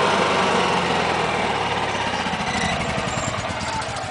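Portable generator engine shutting down by remote control: it runs steadily, then about halfway through its pitch starts to fall as the engine winds down.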